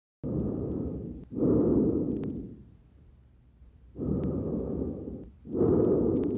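Normal vesicular breath sounds heard through a stethoscope over the back of the chest: two full breaths, each a soft rushing in and out with a short break between, then a quiet pause between the breaths.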